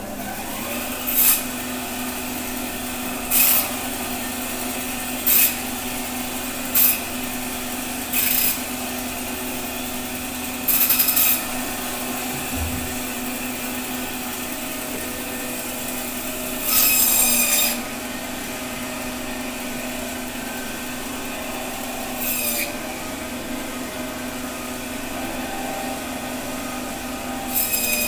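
Meat band saw running steadily, with about nine short, harsh bursts as its blade cuts through a large Ayer catfish's flesh and backbone; two of the cuts last longer.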